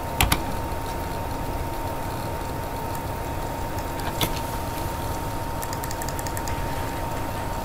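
A few computer mouse clicks, a double click near the start and one about four seconds in, then a run of faint ticks near the end, over a steady recording hiss with a thin high hum.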